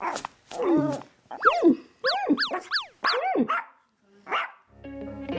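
Dog barking sound effect: a quick run of about six short barks, each rising then falling in pitch.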